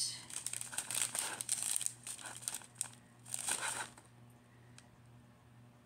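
Small plastic bags of diamond painting drills crinkling as they are handled: crackly rustling for most of the first three seconds, then another short bout after a pause.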